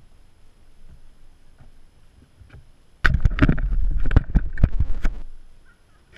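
Action camera jostled and scraped over a gravel dirt trail: a sudden loud burst of knocks, scrapes and rumble on the microphone starting about three seconds in and lasting about two seconds.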